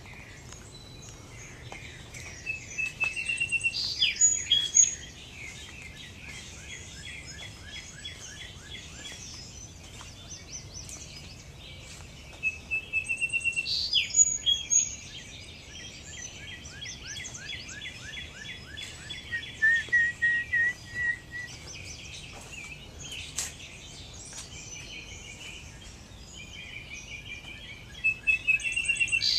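Dawn chorus: many birds chirping and singing steadily, with a louder bird breaking in four times with a short phrase of quick repeated notes.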